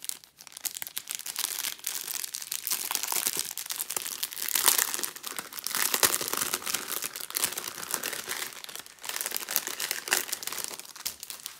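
Small plastic self-seal bags of diamond painting drills crinkling and crackling as they are handled and sorted.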